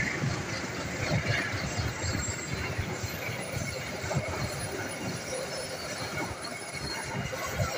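Indonesian KAI passenger coaches rolling past on the rails: a steady rumble of steel wheels on track, with irregular low knocks as the wheels run over the rail joints.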